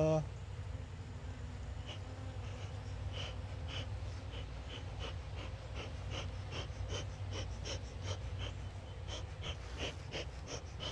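Honeybees buzzing around an open hive, a low steady hum. From about two seconds in, a run of small irregular clicks comes a few times a second.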